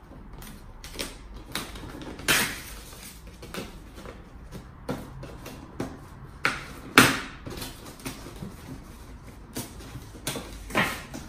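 A stiff cardboard soundbar box being worked open by hand: a string of short scrapes and knocks of cardboard, the loudest about seven seconds in.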